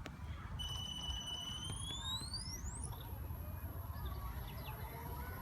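High electric whine from a 12-cell electric RC helicopter's motor spooling up: a steady high tone starts about half a second in, sweeps sharply upward around the two-second mark, then holds at a very high pitch. Low wind rumble on the microphone runs underneath.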